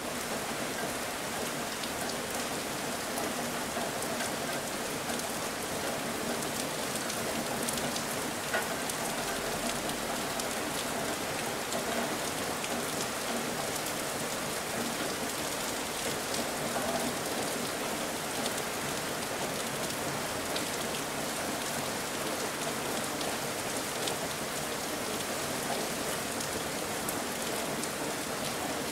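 Steady rain: an even hiss with small drop ticks scattered through it.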